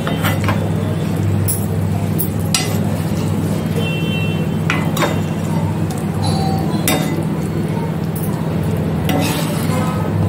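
A steel ladle scraping and clinking against a metal cooking pot as cooked chicken pieces are scooped out of the gravy, with several sharp clinks spread through. A steady low hum runs underneath.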